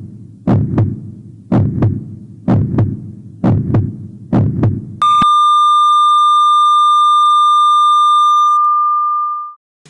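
Heartbeat sound effect, double thumps about once a second, cut off about five seconds in by a steady high electronic tone like a heart monitor's flatline, which is held for about four seconds and then stops.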